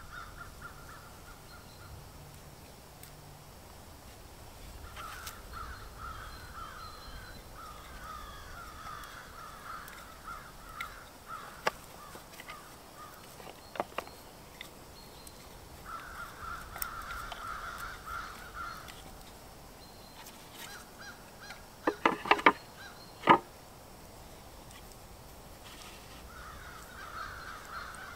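Crows cawing in repeated runs of calls, with a few sharp wooden knocks, a quick cluster of four or five about two-thirds of the way through, as a folding wooden stand is handled and set up.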